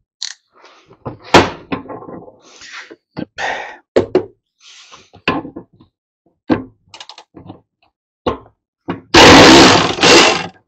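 Scattered knocks and clicks of tools and metal parts being handled at a car's hatch striker, then a cordless electric ratchet running in two short bursts near the end, backing out the striker's screws.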